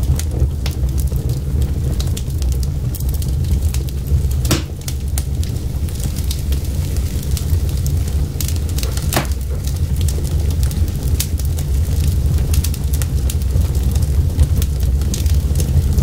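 Wood fire of split logs burning: a steady low rush of flames with scattered crackles and pops, two of them louder, about four and a half and nine seconds in.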